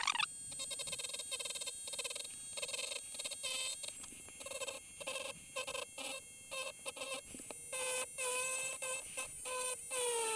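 Small rotary tool with an engraving tip running at low speed, cutting into acrylic: a whine that breaks off and comes back in short strokes as the tip is set down and lifted, its pitch sagging at times under the load.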